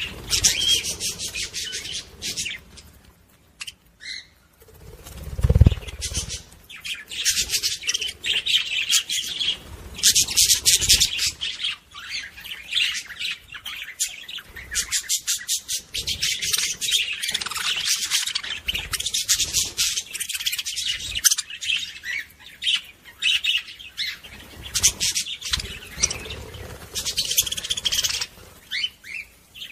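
Budgerigar song: a fast, chattering warble of chirps and clicks, the kind of courtship warble played to bring budgie hens into breeding mood. It breaks off briefly about three seconds in, and a single dull thump comes about five seconds in.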